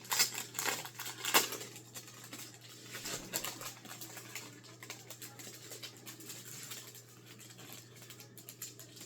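Packaging of a set of page overlays being opened and handled: crisp rustling and clicking, loudest in the first second and a half with one sharp snap, then fainter crackles over a low steady hum.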